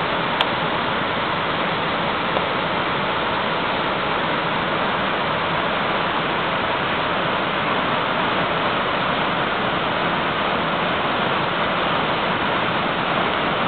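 Steady, even rush of the Salto do Itiquira waterfall, its tall plunge and lower cascades falling onto rock, with a single brief click about half a second in.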